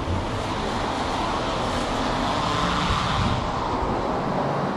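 A car running in a workshop as a steady mechanical noise that swells about a second in and eases off after about three seconds.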